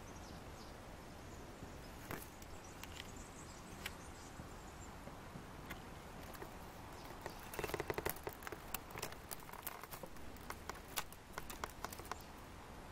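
Buff-tailed bumblebees at their ground-nest entrance: a brief, loud buzz of wings about two-thirds through. Scattered ticks and crackles run around it, thickening in the second half, as the bees crawl over dry soil and twigs.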